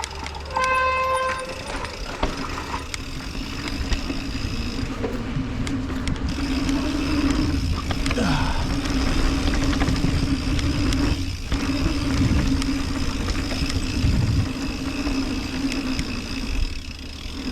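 Mountain bike running down a downhill trail: wind rumble on the microphone and the rattle of tyres and frame over the ground, with a steady droning hum. There is a brief high squeal about half a second in.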